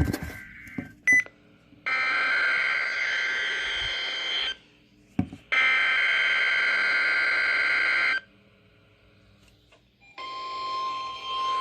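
NOAA Weather Radio test signal coming through weather radio speakers: two bursts of harsh digital data tones (the SAME header that triggers the receivers), about a second apart. About ten seconds in the steady weather-alert alarm tone starts over static hiss. A short beep sounds about a second in.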